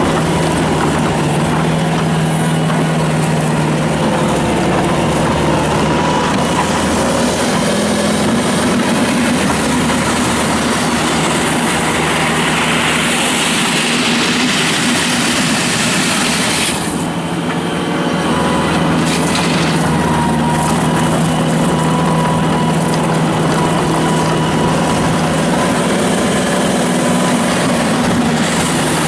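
Bobcat T300 tracked skid steer's Kubota turbo diesel engine running steadily, its level dipping briefly a little past halfway before picking back up.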